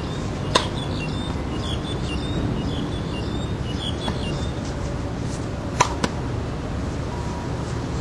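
Tennis ball struck by a racquet: a sharp pop about half a second in, then two more pops a quarter-second apart near six seconds in, over steady background noise.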